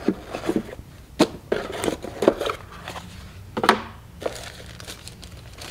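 Unboxing handling noise: a plastic dash cam set down on a wooden tabletop and hands rummaging in its cardboard box, giving a few sharp knocks and clicks with light rustling.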